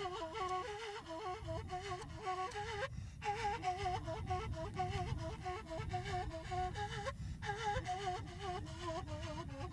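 A breathy flute playing an ornamented melody in short repeating turns, with brief breaks for breath about three and seven seconds in, over a steady low rumble.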